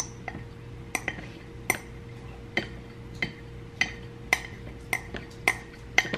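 A dozen or so light, irregular clinks of a ceramic matcha bowl knocking against a metal matcha tin, each with a short ringing tail, over a faint steady hum.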